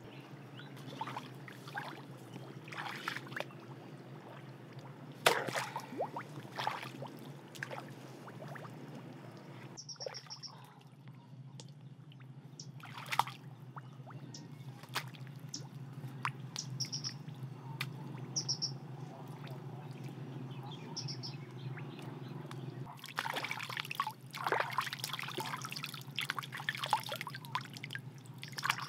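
Shallow muddy pond water splashing and sloshing around wading legs and a bamboo fish spear, with scattered splashes and a dense burst of splashing and dripping in the last few seconds as a caught fish is handled. Short high bird chirps sound several times in the middle.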